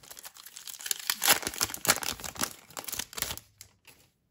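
Foil wrapper of a 2020 Bowman Chrome baseball card pack being torn open by hand, crinkling and tearing in quick bursts that die away near the end.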